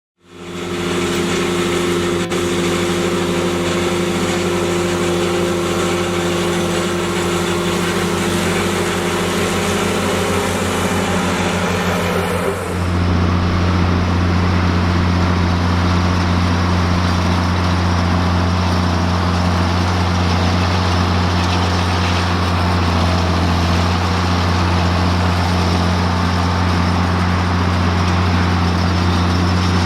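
A farm tractor engine runs steadily at haylage baling. About twelve seconds in, the sound shifts to a deeper, heavier hum.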